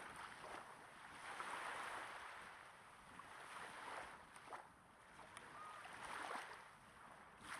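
Small waves breaking gently on a sandy shore, heard close up: a soft hiss that swells and fades every couple of seconds, with faint crackles of fizz as each wave washes in.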